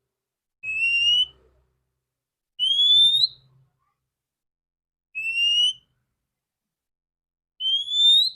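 Female oriental magpie-robin (kacer) giving a clear whistled call four times, about two and a half seconds apart, each note a short upward-sliding whistle.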